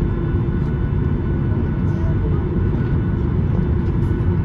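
Steady low rumble of a Boeing 737-800's CFM56 engines at taxi power, heard inside the cabin, with a faint steady hum running through it.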